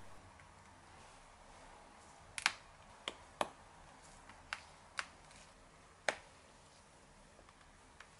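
Light, sharp clicks and taps from an iPhone 13 being handled in gloved hands: about seven separate clicks spread over a few seconds, with faint room tone between them.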